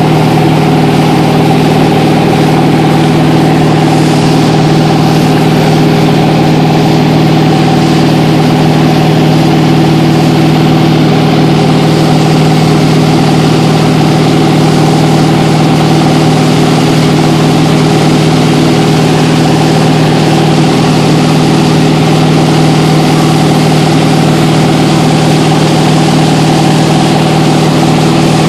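The towing boat's engine running steadily at cruising speed, a constant drone, over the rush of the churning wake.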